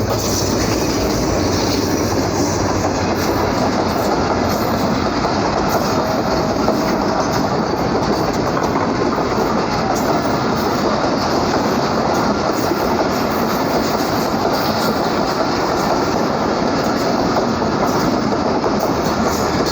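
Pakistan Railways Millat Express passenger train passing close by at speed: a steady, loud run of coach wheels over the rails for the whole length.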